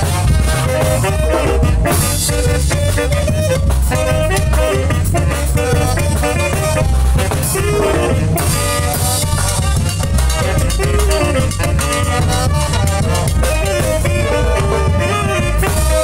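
Latin tropical dance-band music at a steady level: brass playing melody lines over bass and drums, with no singing.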